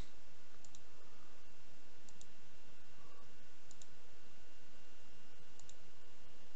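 Computer mouse clicking four times, each click a quick pair of ticks, over a steady hiss.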